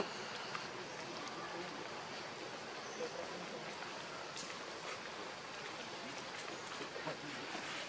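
Steady outdoor background hiss, like running water or forest ambience, with a few faint clicks and ticks.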